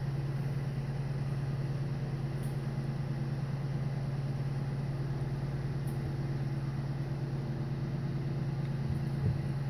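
Steady low mechanical hum of a running machine, unchanging throughout, with a couple of faint light clicks.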